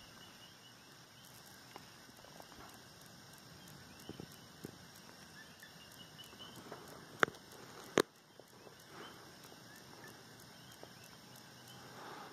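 Faint steady background hiss with a few light ticks, then two sharp clicks about a second apart past the middle.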